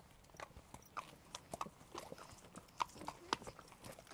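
A pony's hooves stepping on a hard path and gravel as it is led at a walk, with a person's footsteps: faint, irregular clicks and knocks, several a second.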